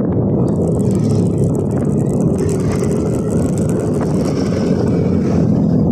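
Motorcycle engine running steadily while riding slowly in city traffic: a steady low rumble.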